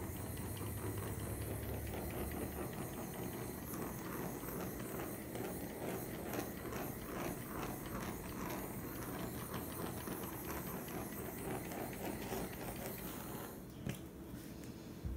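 Handheld butane torch burning with a steady hiss, played over wet poured acrylic paint to pop air bubbles. The hiss stops near the end, followed by a click.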